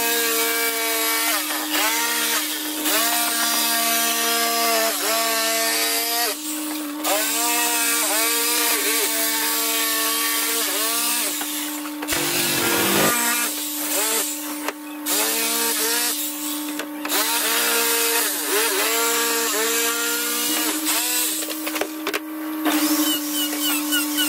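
Handheld electric jigsaw cutting a curved line through a wooden board. Its motor runs with a harsh sawing rasp, and the pitch dips and rises again about once a second as the blade bites, with a couple of brief breaks.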